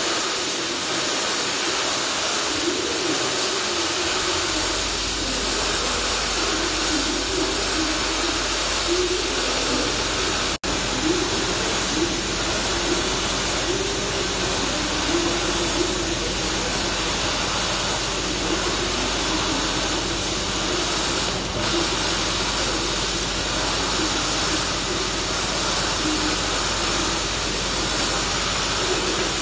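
MIG welding arcs crackling and hissing steadily as two welders run beads along a steel I-beam. A low hum comes in after about four seconds, and there is a brief sharp dropout about ten seconds in.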